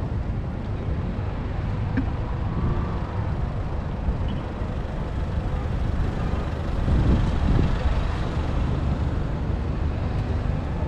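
City road traffic: cars driving past with a steady low rumble, swelling as a car passes close about seven seconds in.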